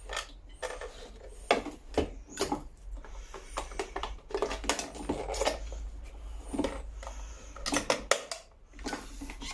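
Irregular clinks, knocks and rustles of small metal parts being handled and set down on a workbench, over a steady low hum.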